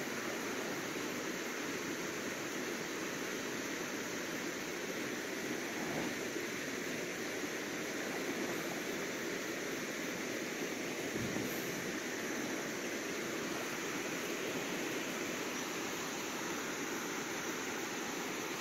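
Steady rushing noise of shallow river water stirred up around a wading elephant's legs.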